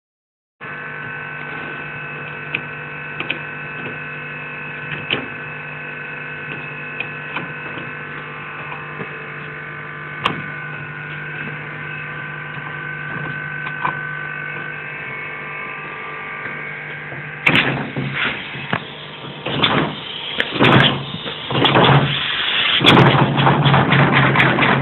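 A steady hum with a few light clicks. About two-thirds of the way through it gives way to a homemade pneumatic engine, built from a modified office-chair piston, starting on compressed air: hissing air puffs come irregularly at first, then settle into a fast, even exhaust beat of several puffs a second as it runs up.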